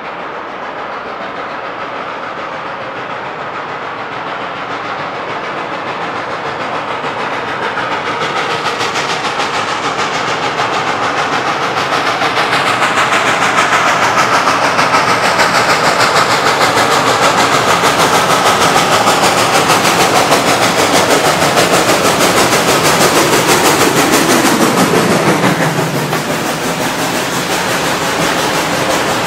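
Reading & Northern 425, a 4-6-2 steam locomotive, approaching under steam with a passenger train and growing steadily louder. It passes close by about 25 seconds in, with a falling pitch and a drop in level. Its passenger cars' wheels then run by on the rails.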